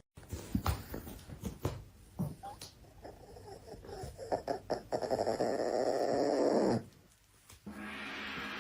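A dog growling in rapid pulses that break off suddenly about seven seconds in, then a dog growling again; scattered knocks and clicks come before it.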